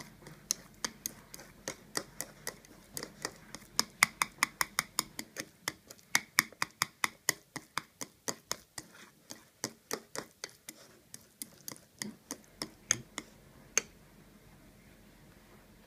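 Chopsticks clicking against the side of a bowl while stirring rice with ketchup: quick, uneven taps, about three to six a second, which stop about a second before the end.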